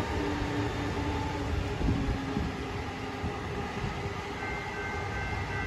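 Brightline passenger train moving away, the hum of its Siemens Charger diesel locomotive and the wheel rumble fading steadily. Faint, steady high-pitched tones come in about four seconds in.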